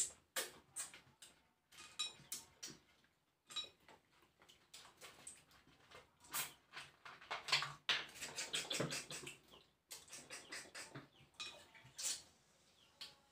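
Close eating sounds: lip smacking and sucking at fingers and shells of crab and snails cooked in coconut milk, eaten by hand, with small clicks of shells and dishes. Near the end, cola is poured into a glass.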